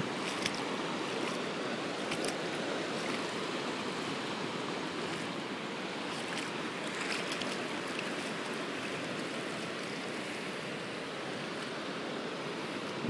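Steady rush of surf breaking on a rocky shore, with shallow water washing across a flat rock shelf.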